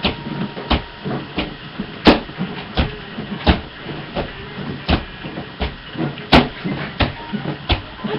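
Someone bouncing on a bed: a regular thump with a creak of the mattress springs about every 0.7 seconds.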